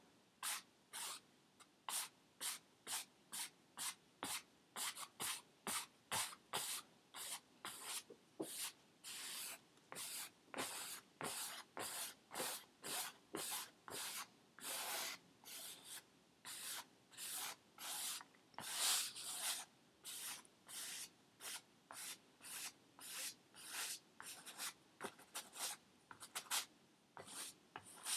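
Paintbrush scrubbing paint onto a canvas in short, quick strokes, about two a second, each a brief scratchy swish; a few strokes near the middle and end are louder.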